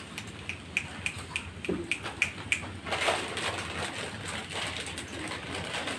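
Snack packets crinkling as they are handled, with short crisp crackles, as of crunching, in the first half, giving way to a denser, steady rustle from about halfway.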